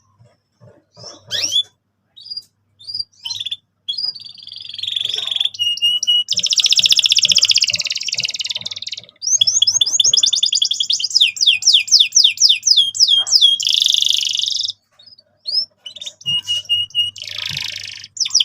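Male canary singing a full, loud song: scattered chirps open into dense buzzing rolls and fast trills of repeated falling notes. It breaks briefly about three-quarters of the way through, then resumes.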